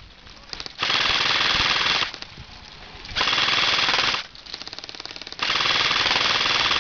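Airsoft electric guns firing full-auto: three loud bursts of rapid fire, each about a second or more long, with fainter rapid rattling fire in the gaps between them.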